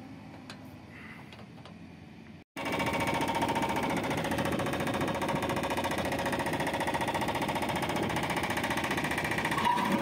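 Backhoe loader diesel engines working under load while digging, a loud, rapid, even clatter. For the first two and a half seconds a fainter machine sound, then an abrupt switch to the louder one.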